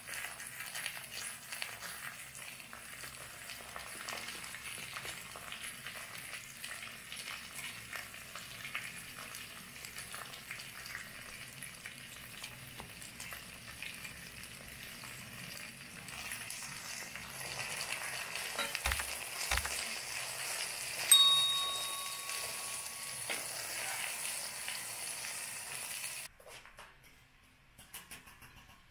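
Pot of lubia polo sizzling on a camping gas burner, a steady hiss that grows a little louder past the middle. About three-quarters of the way through comes one sharp, ringing metal clink, and the sizzle cuts off suddenly near the end.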